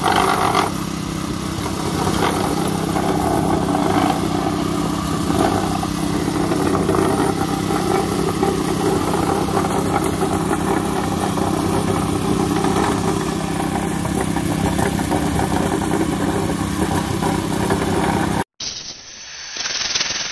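Small gasoline engine of a vibratory plate compactor running steadily as it compacts fresh asphalt patching. It cuts off abruptly near the end, followed by a quieter rattle.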